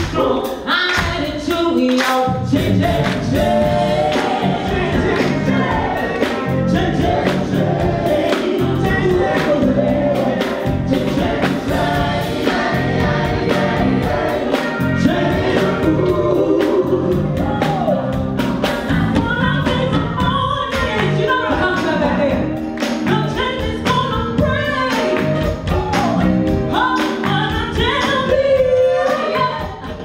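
Soul music from a vocal group and live band: sung lead and group harmony vocals over a steady drum beat.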